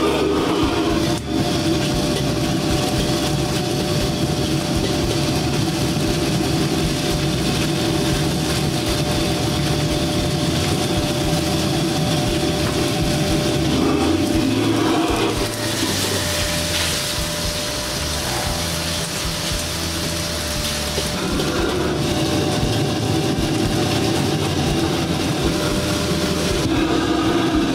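A commercial gas wok burner running at full blast with a steady rush, under the sizzle of sliced beef searing in a hot carbon-steel wok. The rush eases a little about halfway through, then comes back.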